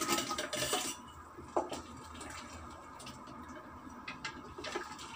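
A stainless steel bowl clattering against a clay soup pot as chunks of hairy melon are tipped into the broth, loudest in the first second. Then a sharp knock and a few light knocks of a wooden spatula stirring in the pot.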